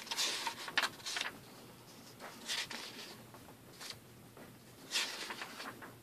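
Printed paper pages of a stapled picture book being turned by hand, rustling in several brief swishes.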